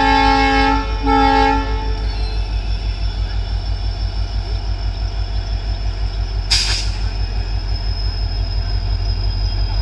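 WDP-4D diesel locomotive's horn sounds a chord that ends just under a second in, followed by a second short blast. Under it, the locomotive's engine drones with a loud, low pulsing hum and a steady high whine as it pulls away, and a brief hiss comes about two thirds of the way through.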